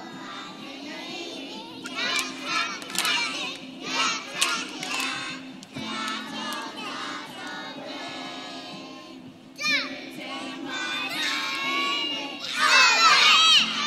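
A group of preschool children's voices shouting and singing together in bursts, over the noise of a crowd. The loudest burst, a mass of high squealing voices, comes near the end.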